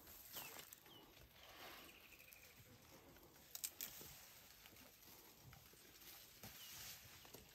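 Faint rustling and snapping of leaves and twigs as an African elephant browses, its trunk pulling at bush vegetation, with a sharp double crack about three and a half seconds in. A few faint bird chirps sound early on.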